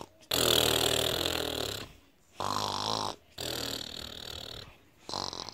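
Exaggerated snoring from a person: a run of long, rasping snoring breaths with short pauses between them.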